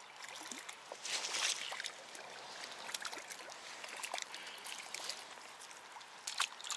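Faint water splashing and trickling at the water's edge, with a few scattered small clicks and rustles.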